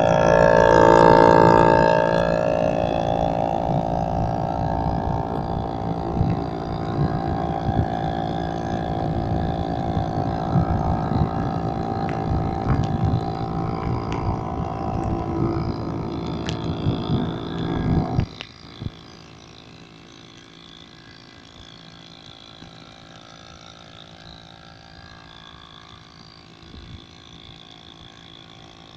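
A goped's small 30cc grass-cutter engine revving and running under way, its pitch rising over the first two seconds. About 18 seconds in the engine sound drops off sharply to a much quieter steady drone.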